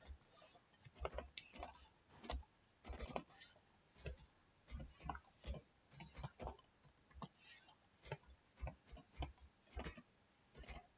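Computer keyboard keystrokes: faint, irregular clicks, a few a second, as text is typed key by key.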